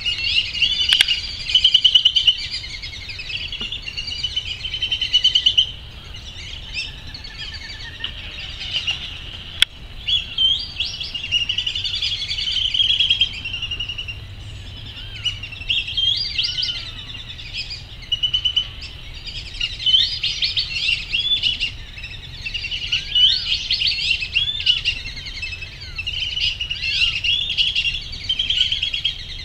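A flock of black-bellied whistling ducks giving high, squealing whistled calls, many birds calling over one another with hardly a break.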